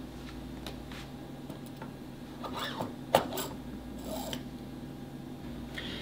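Metal cartridge mechanical seal being slid onto a lubricated pump shaft: faint rubbing, one sharp click about three seconds in, and a short scrape about a second later, over a low steady hum.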